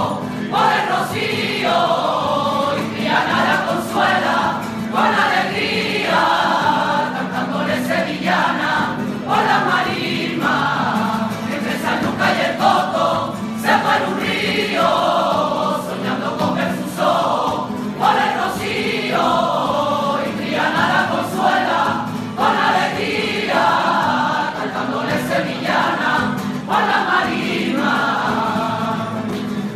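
A choir singing a Spanish devotional song in the rociero style, in continuous phrases over a steady low accompaniment.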